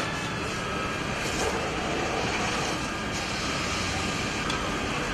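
Fire engines running to feed the hoses. A steady noisy roar with a few faint, steady whining tones in it.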